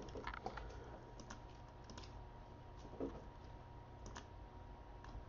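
Faint, irregular clicks of a computer keyboard and mouse being used.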